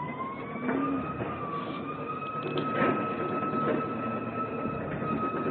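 Electric pallet truck's drive motor whining, rising in pitch as it picks up speed and then holding steady, with a few knocks and rattles as it rolls over the concrete floor.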